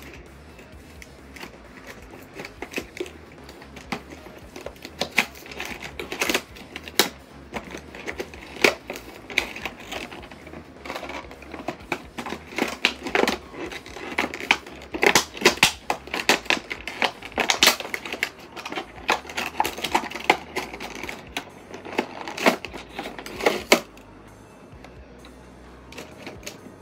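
A cardboard retail box with a clear plastic window being worked open by hand: irregular crackling, snapping and tapping of the cardboard and plastic packaging. It is busiest through the middle and dies down a few seconds before the end.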